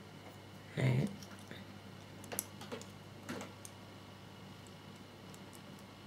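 Light clicks and taps of small plastic scale-model parts being handled and pressed together, the two halves of the coolant tank, with a brief louder sound about a second in.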